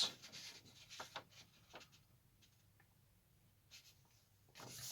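Faint rustling and light ticks of a paper instruction sheet being handled, a few in the first two seconds, then near silence, with another soft rustle near the end.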